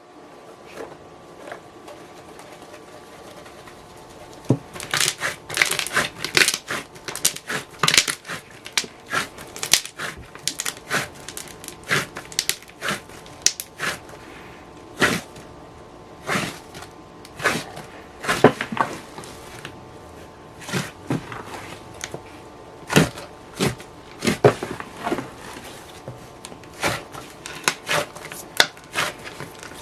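Hands kneading a large batch of slime: irregular sticky pops and clicks, sparse for the first few seconds and then coming thick and fast.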